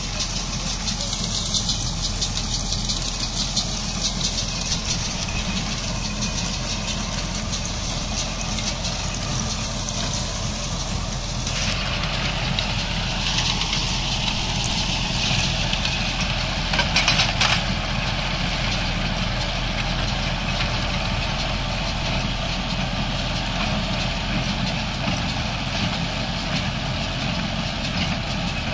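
Tractor engine running steadily under load while it drives a small square hay baler working in a stubble field. About halfway through there is a brief, louder clatter from the machinery.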